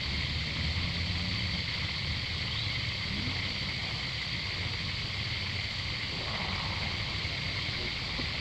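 Steady forest background: a constant high insect drone over a low, even rumble, with no calls from the monkeys.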